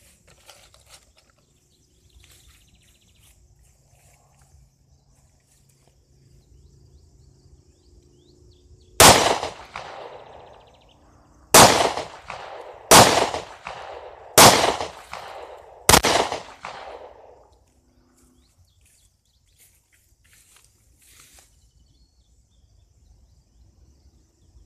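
Five pistol shots from a Smith & Wesson M&P Shield. The first stands alone and the other four come about a second and a half apart, each with a short echo trailing off. They are heard from beside the target, about ten yards from the gun.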